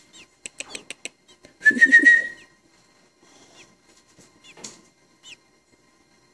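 Faint, short high peeps from baby robin nestlings, repeated every second or so. A few sharp clicks come near the start, and a louder whistle-like squeal sounds about two seconds in.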